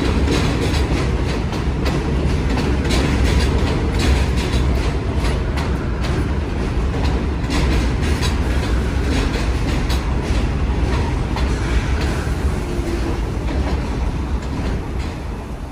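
New York City subway train running past, its wheels clicking over rail joints above a steady low rumble; it begins to fade near the end.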